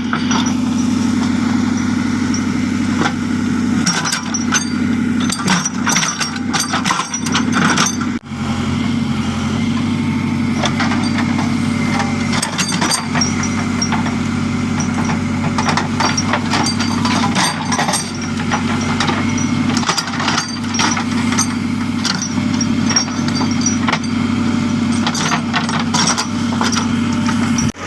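JCB backhoe loader's diesel engine running steadily while working, with scattered knocks and clanks throughout.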